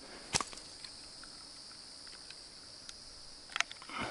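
Insects chirring steadily, with one sharp click about a third of a second in and a few softer clicks and a short rustle near the end.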